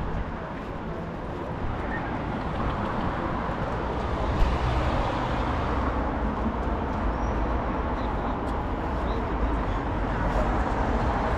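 Steady street traffic noise with a low rumble, growing slightly louder, and one short click about four and a half seconds in.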